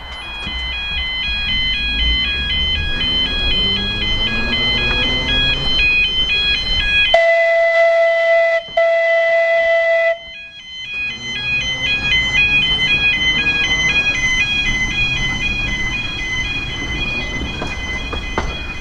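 Electric tram running on its line, its motor whine rising as it gathers speed. Throughout, a repeating warbling electronic warning tone steps between a few high notes. About seven seconds in, a loud steady hooting tone sounds for about three seconds, broken once briefly.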